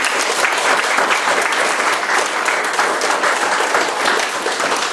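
Applause from a small roomful of people, many hands clapping at a steady, even level.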